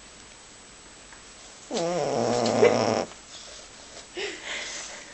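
Boxer dog snoring loudly in its sleep: one loud snore lasting just over a second, starting about two seconds in, followed by a softer, breathy sound near the end.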